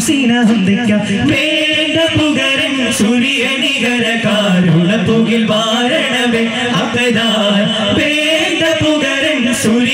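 Daff muttu performance: a group of men chanting a song together while striking daff frame drums.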